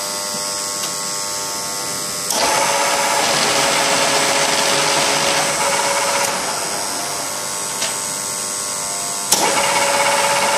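Huron MU5 knee-type milling machine running, with its up-down (knee) rapid traverse engaged twice. A louder machine sound cuts in sharply about two seconds in, runs for about four seconds and eases off, then cuts in again with a click near the end.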